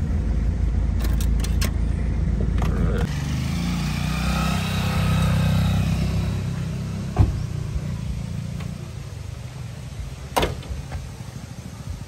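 A motor vehicle running, its low rumble dropping about three seconds in and then fading, with a few sharp knocks and clicks.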